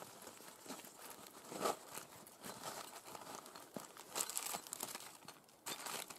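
Plastic bags crinkling and rustling in irregular bursts as they are handled and pulled from a leather pouch, with soft rubbing of the leather and cloth.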